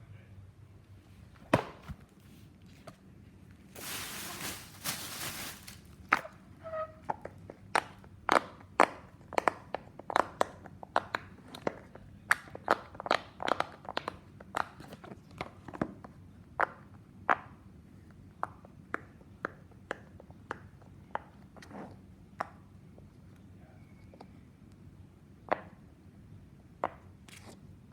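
Fidget toys being popped: a long run of sharp, irregular pops and clicks, thickest in the middle and thinning out towards the end. A burst of hissing noise lasts about a second and a half around four seconds in.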